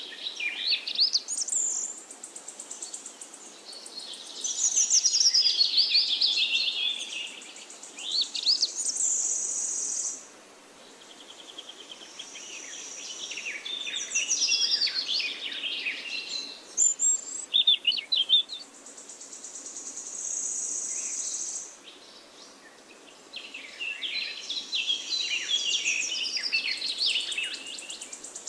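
Songbirds singing in repeated quick chirping and warbling phrases, with a high steady buzz coming and going between them several times.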